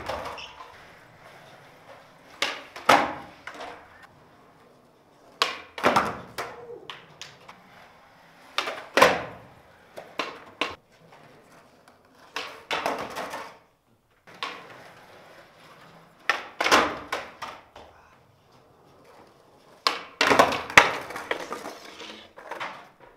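Flatground skateboard tricks on a smooth hard floor: sharp tail pops, the board clacking and slapping down, and short stretches of wheels rolling, in repeated bursts a few seconds apart.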